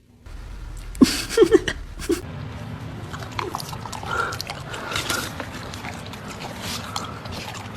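A dog biting and chewing a lemon: sharp bites clustered a second or so in, then continued chewing and mouth noises.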